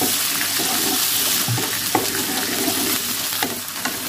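Hot oil in a wok sizzling steadily with a splash of water just added to the frying garlic, shallots and galangal, while a wooden spatula stirs and scrapes across the pan a few times.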